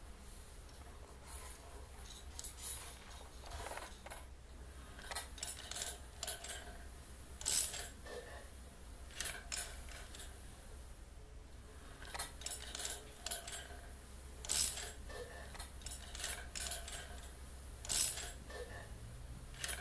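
Scattered metallic clicks, taps and clinks of hand work on a steel window-bar bracket and its fittings, a few sharper knocks standing out, over a low steady hum.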